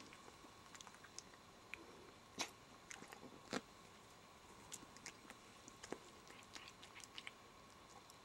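Siamese cat chewing a treat taken from a hand, faint with scattered small crunching clicks, two louder ones about two and a half and three and a half seconds in.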